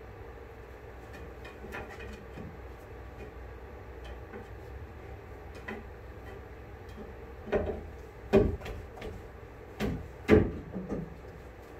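Several dull knocks and thumps from hands-on work around a fibreglass boat hull, coming in the second half, the loudest about eight and ten seconds in, over a steady low hum.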